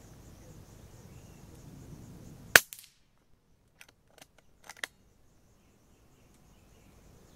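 A single sharp shot from a PCP air rifle whose springs, firing valve and hammer have just been changed, followed a second or so later by a few light clicks.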